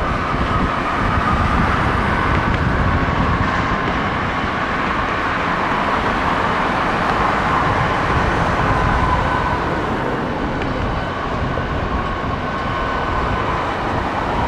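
Jet engines of an arriving Boeing 737-800, its CFM56 turbofans, giving a loud steady rumble with a whine that slowly falls in pitch.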